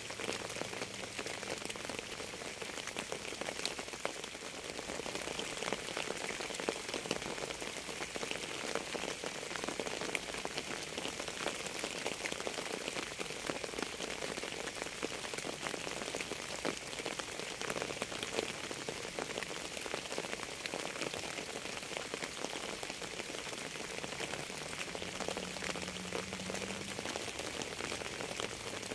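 Steady rain: an even hiss with a dense, constant scatter of individual drops striking a surface.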